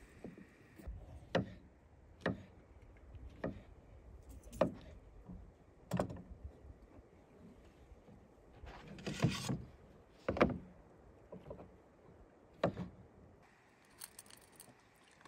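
Sharp knocks and clicks about once a second as things are handled on a pickup truck's tailgate, with a longer rustle about nine seconds in.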